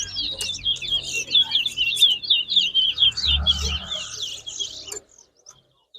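Towa-towa (chestnut-bellied seed finch) singing a fast, continuous twittering song, which breaks off suddenly about five seconds in.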